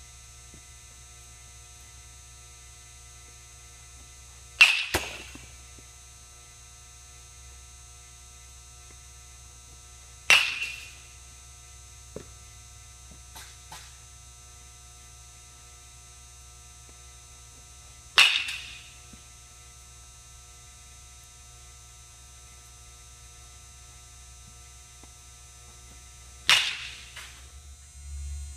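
A baseball bat striking balls in an indoor batting cage: four sharp cracks several seconds apart, each with a brief ringing tail. A steady low electrical hum runs underneath.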